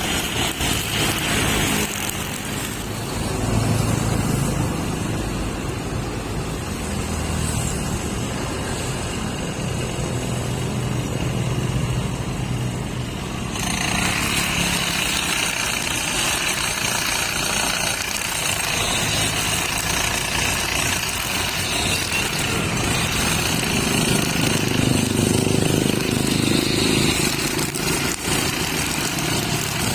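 Brush cutter fitted with nylon trimmer line, its small engine running steadily at speed. About halfway through, the sound turns brighter and harsher.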